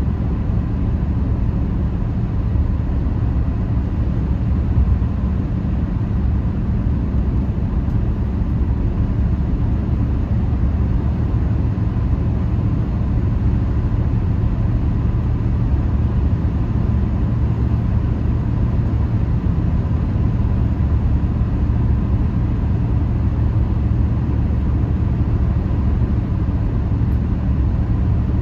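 Car cabin interior at highway speed: a steady low rumble of tyre and engine noise while cruising, with no sudden events.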